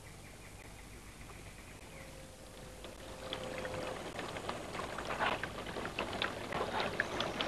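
Water splashing: a run of quick, irregular splashes that starts about three seconds in and grows louder, after a quiet opening with a faint thin tone.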